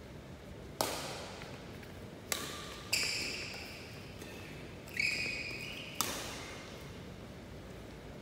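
Badminton rally: a shuttlecock struck back and forth by rackets, about five sharp hits at uneven intervals, each ringing out in the echo of a large hall. Short high squeaks of court shoes on the floor come between the hits.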